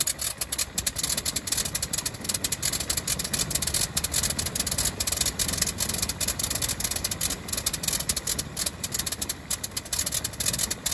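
Freshly overhauled 120 hp Le Rhône nine-cylinder rotary engine of a Fokker Dr.I triplane running with its wooden propeller turning, a rapid, uneven beat of firing pulses.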